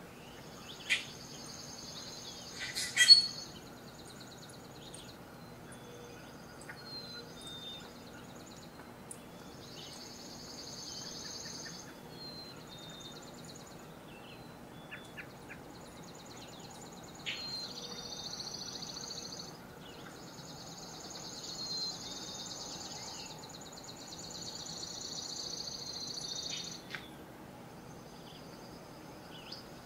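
Woodland songbirds singing high trilling songs, several at once, some trills lasting a few seconds. About three seconds in there is a sharp crack, the loudest sound, with a smaller one just before it.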